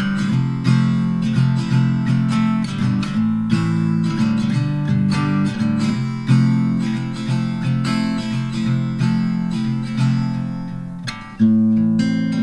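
Background music: acoustic guitar strummed in a steady rhythm, with a brief dip near the end before the strumming comes back in strongly.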